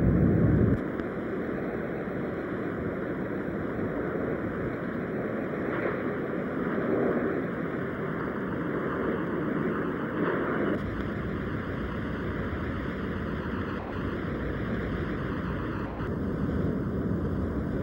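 Steady rushing wind-and-water noise with a low rumble, as heard aboard a boat under way. It is louder for the first second, then settles to an even level.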